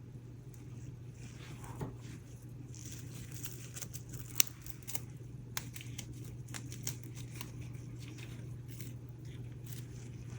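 Faint scattered clicks, ticks and crinkles of small hand work, pushing and handling dried flowers in a resin mold, with one sharper tick about four and a half seconds in, over a steady low hum.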